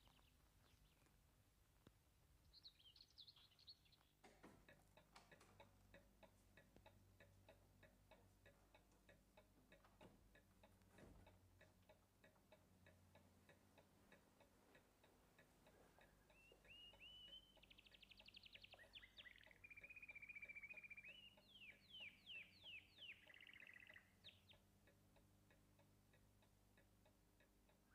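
Near silence: faint, regular ticking starts a few seconds in. Faint bird chirps and trills come in the second half.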